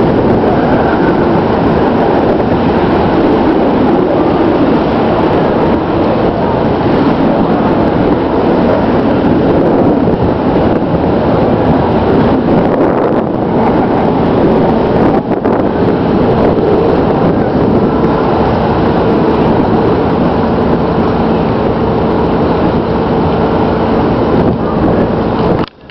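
A sailboat's auxiliary engine running steadily while motoring, under a loud, even rushing noise.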